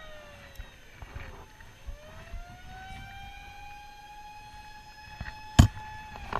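A siren wailing: its pitch slides down, rises again about a second and a half in, then holds steady until shortly before the end. A single sharp knock about five and a half seconds in.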